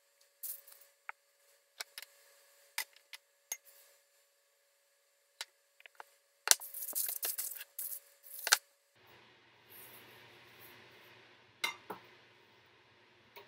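Kitchen clatter of frying pans and a spatula being handled: scattered clicks and knocks, with a busier, louder run of clattering in the middle. A steady hiss comes in for the last few seconds.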